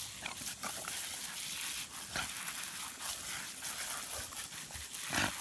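A Border Collie gives short dog sounds as it jumps and snaps at the spray from a garden hose, over a steady hiss of the spraying water. The loudest sound comes just before the end.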